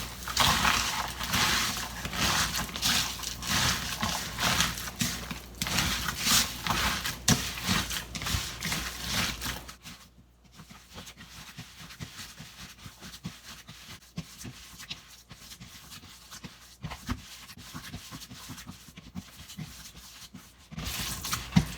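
Hands kneading a wet mixture of ground beef and pork, silken tofu, egg and breadcrumbs in a bowl: a rapid series of soft, wet squishes, louder for about the first ten seconds and softer after that.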